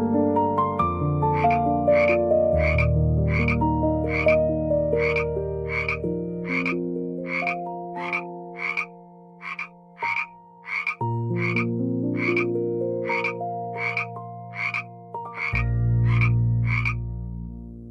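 A frog croaking over and over in an even rhythm, about one and a half calls a second, over soft background music with long held notes.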